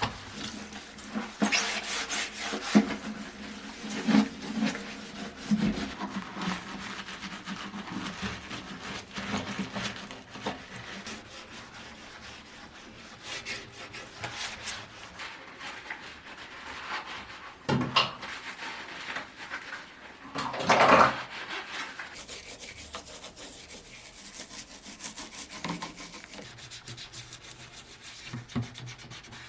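Hand scrubbing and rubbing on a hard surface, in irregular strokes, with one louder scrape about two-thirds of the way through.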